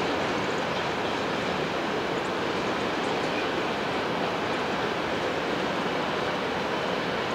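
Freight cars (tank cars and boxcars) rolling across a steel overpass bridge: a steady noise of wheels on rail, without distinct clicks.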